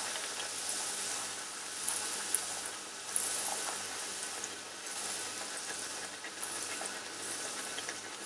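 Hot oil sizzling steadily around an aloo puri deep-frying in a pan, swelling in waves.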